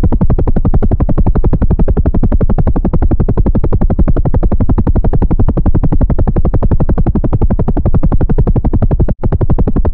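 Helicopter rotor blades chopping in a rapid, steady, even pulse, cut off for an instant about nine seconds in.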